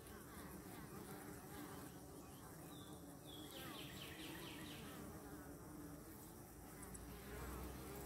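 Honey bees buzzing faintly as they fly in and out of the hive entrance. A low rumble joins in near the end.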